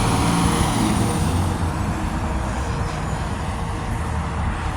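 Road traffic: a motor vehicle going by with steady engine and tyre noise and a low rumble, easing off slightly over the few seconds.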